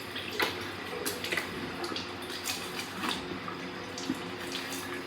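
Water splashing at a sink during face washing, with irregular short splashes and drips over a steady background.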